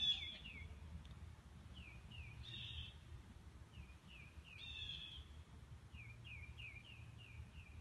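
Songbirds chirping: series of short, quick falling chirps repeated again and again, with two louder, harsher calls about two and a half and five seconds in, over a faint low background rumble.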